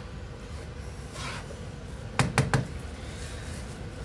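A wooden spoon working through a crumbly semolina mixture in a pan with a soft scrape, then three quick knocks of the spoon against the pan a little past halfway through.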